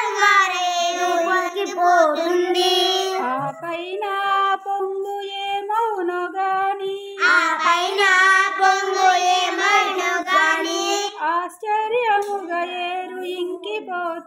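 A child singing a Telugu lesson song, holding long, melodic notes with a short break about three and a half seconds in.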